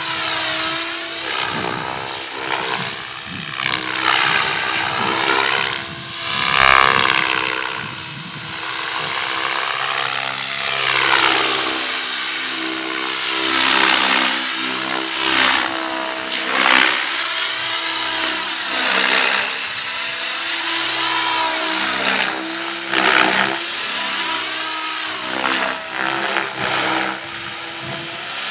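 Electric Mikado Logo 700 radio-controlled helicopter in flight: a steady motor and rotor whine with whooshing blade noise that swells and fades as it moves around. It gets louder in several passes, the loudest about six seconds in.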